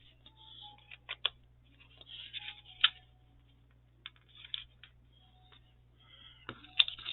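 Paper and card pieces being handled and arranged on a work surface: intermittent rustling with several sharp taps and clicks, loudest about three seconds in and near the end.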